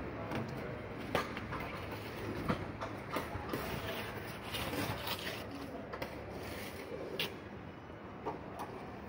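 Scattered light knocks and clicks, a few a second and irregular, over a low steady background noise.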